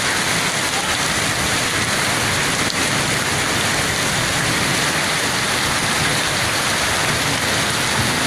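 Heavy rain falling steadily, an even hiss of downpour on surfaces.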